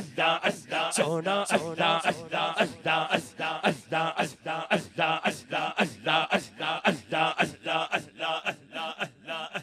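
Zikr chant of 'Allah, Allah' sung by a male voice over a microphone, repeated in a quick, even rhythm of about three syllables a second on a steady low pitch.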